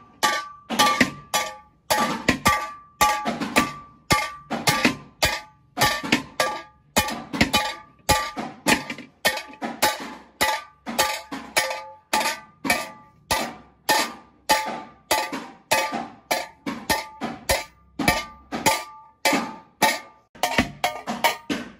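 Hammer blows on a large aluminium cooking-pot shell, about two to three a second in a steady rhythm. Each blow rings briefly with the same metallic tone as the pot is beaten into shape.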